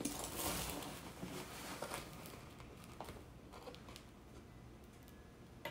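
Faint rustle of dry instant potato flakes as a measuring spoon scoops them from a cardboard box, with a few light taps.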